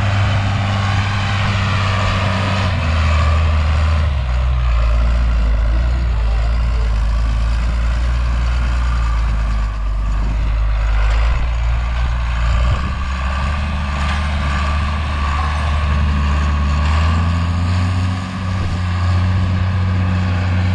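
A John Deere row-crop tractor's diesel engine running steadily under load as it pulls a cultivator through the field to re-open the furrows. The low drone shifts in pitch a few times.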